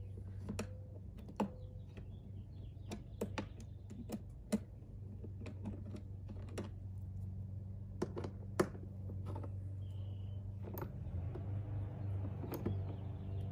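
Sharp, irregular clicks and taps of a hand tool working the fasteners of a plastic windshield cowl panel, with a steady low hum underneath that grows louder near the end.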